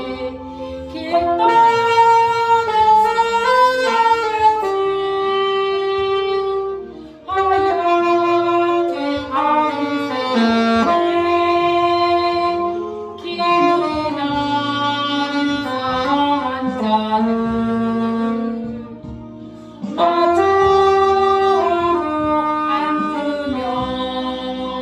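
Saxophone playing a slow song melody in phrases of held notes, with a backing accompaniment underneath.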